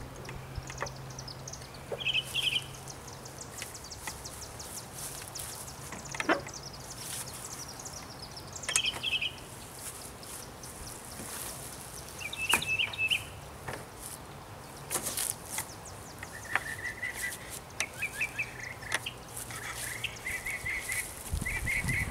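Birds chirping in short repeated trills over a faint steady low hum, with a few sharp knocks and clicks as the metal legs of a folding table are unfolded and the table is set upright.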